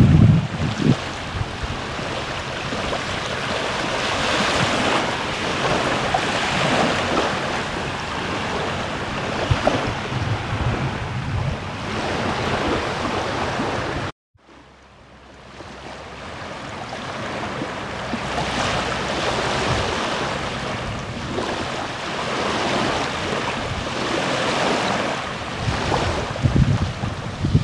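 Small waves washing and lapping onto a sandy shore, with wind buffeting the microphone in low gusts near the start and near the end. The sound cuts out abruptly about halfway through and fades back in.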